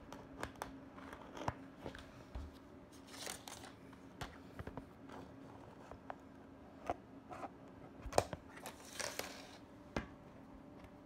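Handling noise from a phone being carried down and set on the floor: scattered knocks and taps, with two short rustling scrapes, about three seconds in and again near the end. A faint steady hum runs underneath.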